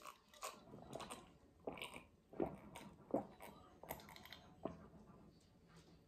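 A person drinking from a glass in long gulps: a series of faint swallowing sounds, roughly one every three-quarters of a second.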